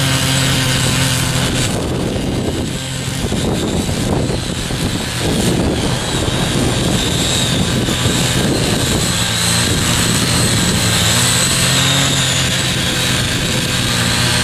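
Small gasoline engine of a foldable mini power tiller running steadily. Its even note gives way to a rougher, irregular sound for several seconds in the middle, then settles again.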